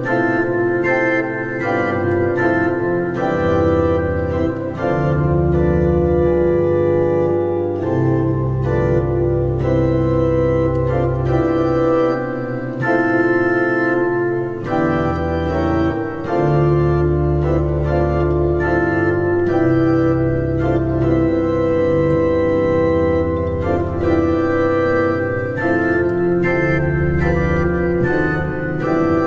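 Digital keyboard's organ voice playing a chordal carol arrangement: sustained chords over held bass notes that change every second or two.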